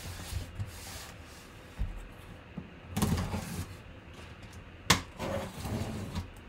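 Cardboard box being handled as its packing tape is slit open: scraping and rustling of cardboard, with one sharp click about five seconds in.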